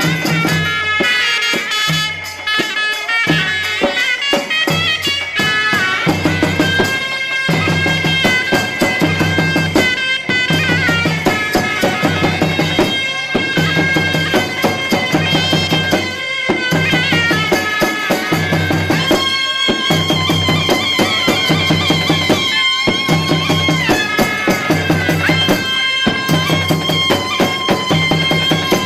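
Egyptian mizmar baladi, a loud double-reed shawm, playing a folk melody with sliding, ornamented notes over a steady low drum beat.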